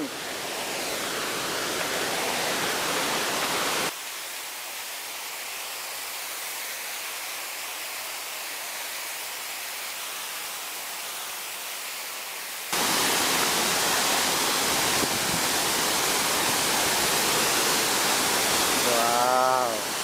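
Steady rushing noise of a waterfall, heard across the valley; it drops abruptly to a softer level about four seconds in and comes back just as abruptly about thirteen seconds in. A voice is heard briefly near the end.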